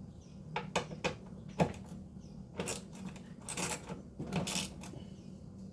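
A socket ratchet and extension being handled and worked: a few sharp metal clicks in the first two seconds, then three short ratcheting rattles.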